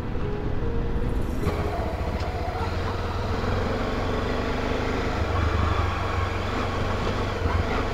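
Motorcycle engine running steadily on the move: a low rumble under a steady rush of road and wind noise.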